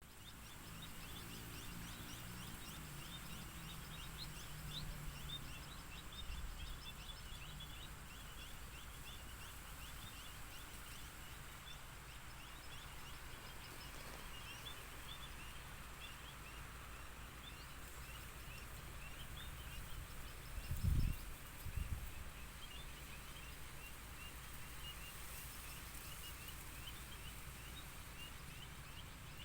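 Many small birds chirping, a dense stream of short, quick chirps that goes on throughout, over a steady low background rumble. Two brief low thuds come about two-thirds of the way through.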